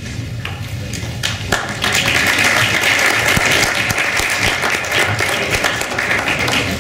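Audience applauding, growing louder about a second and a half in.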